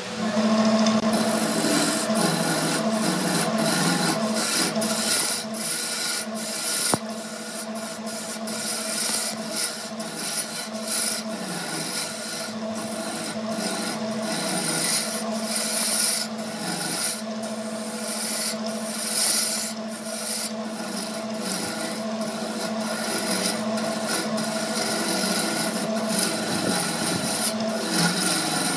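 Wood lathe motor humming steadily while a hand-held turning tool cuts into a spinning glued-up laminated wood blank. The tool's scraping hiss starts about a second in and comes in many short, uneven strokes as shavings fly off.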